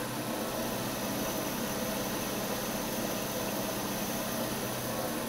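Jet JMD15 round column mill running steadily at about 1,900 spindle RPM, its three-phase motor driven by a VFD: a steady mechanical hum.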